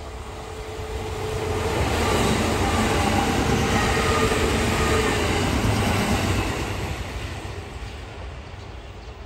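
Kintetsu AONIYOSHI sightseeing-express electric train passing close by on the tracks, its running noise growing to a peak in the middle and fading away after.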